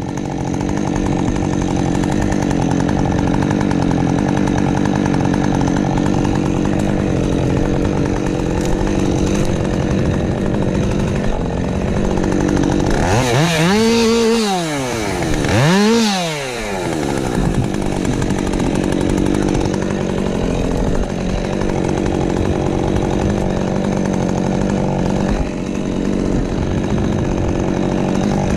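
Husqvarna 550XP Mark II two-stroke chainsaw running under load, cutting spruce with a steady engine note. About halfway through, the revs fall and climb again twice in quick succession.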